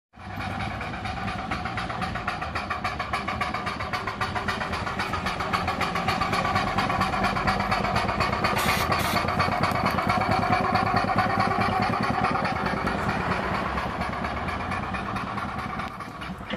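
Miniature live-steam traction engine running as it is driven along, with a rapid, even beat. It grows louder as the engine comes close around the middle, then fades near the end.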